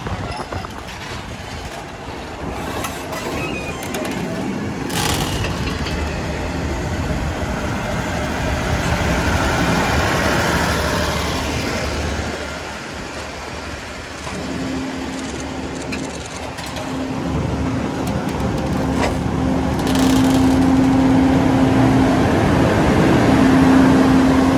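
Passenger train of ex-JR 24-series coaches creeping over a wooden trestle viaduct, its wheels and bogies rattling on the rails. A steady low hum comes in about halfway through and grows louder toward the end.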